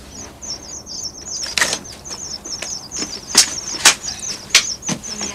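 Books being handled on the shelves: about five sharp knocks and slaps, the first about a second and a half in and the loudest in the second half. Small birds twitter steadily in the background.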